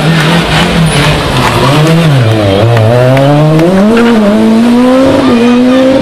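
Rally car engine working hard through a corner: the revs waver and fall about halfway through, then climb steadily as the car accelerates out.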